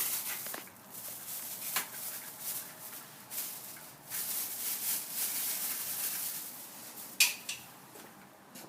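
Handling noise from new spark plugs and their packaging: rustling, with a few light clicks, the sharpest about seven seconds in.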